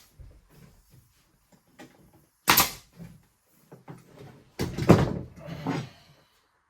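A nail gun firing once into the tongue of a car-siding board, a sharp crack about two and a half seconds in, followed about two seconds later by a cluster of knocks and thumps.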